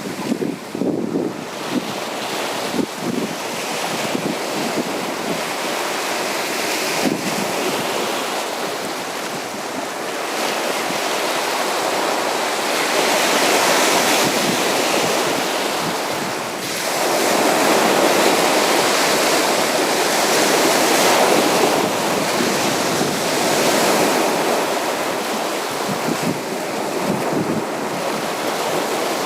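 Sea waves washing onto a beach, a steady surf that swells and ebbs, loudest about halfway through. Wind gusts on the microphone come through underneath.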